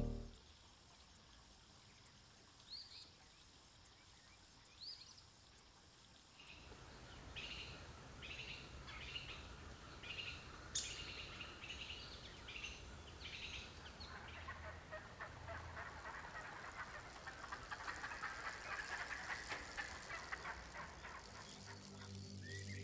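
Faint birds calling: two short chirps, then a run of a dozen or so repeated calls about two a second, followed by a steady chirring in the last stretch.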